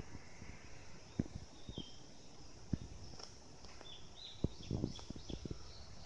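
Scattered soft thuds and knocks at irregular intervals, with a few short, high, downward-sliding bird chirps about a second and a half in and again around four seconds.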